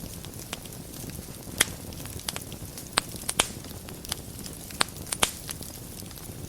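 Wood fire burning in a fireplace: a steady low rumble of flames with frequent sharp crackles and a few louder pops.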